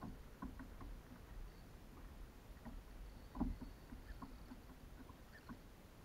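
Quiet water lapping and light irregular taps against a kayak hull, with one louder knock about three and a half seconds in.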